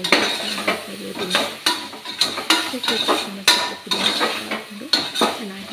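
A metal spatula scraping and knocking against the inside of an aluminium pressure cooker as onions, green chillies and herbs are stirred while frying in butter and oil, with a sizzle underneath. The strokes come irregularly, several a second.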